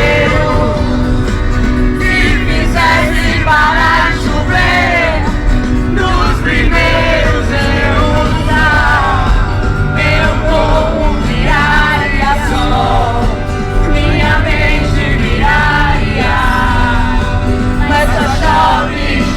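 Loud music with a singing voice over heavy, sustained bass notes.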